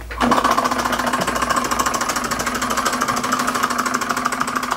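Single-cylinder Bing tinplate hot air engine, spun by hand at its flywheel, catching about a quarter second in and running with a fast, even mechanical clatter.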